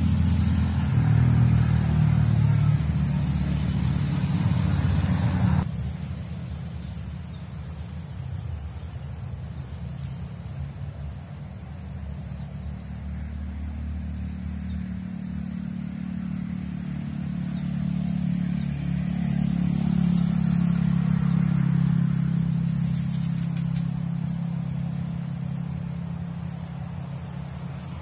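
Low rumble of motor vehicles passing nearby. It drops suddenly about five seconds in, then swells and fades again later. A steady high insect drone runs underneath.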